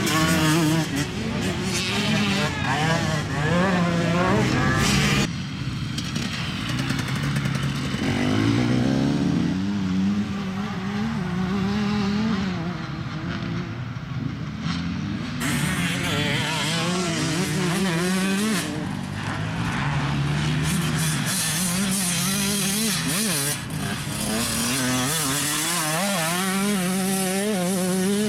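Enduro dirt-bike engines revving, their pitch rising and falling over and over as the bikes are ridden on the course, with sudden changes of sound about five and fifteen seconds in.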